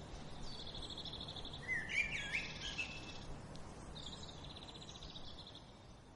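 Birdsong over a steady outdoor background hiss: a rapid high trill, then a burst of louder chirps about two seconds in, then the trill again.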